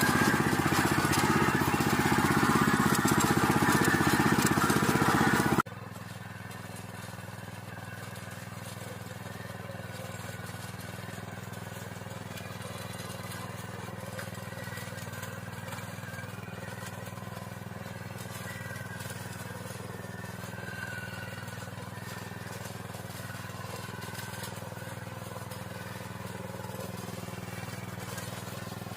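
Small motorised tiller's engine running at a steady pace. It is loud for the first six seconds or so, then drops suddenly to a quieter, steady run for the rest.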